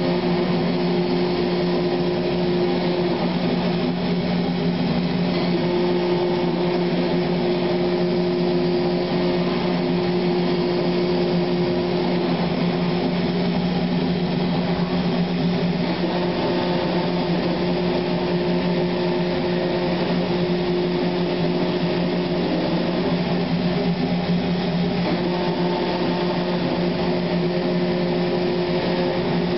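Industrial machine running steadily: an even motor hum with a strong low tone, and a higher tone above it that drops out and returns a few times.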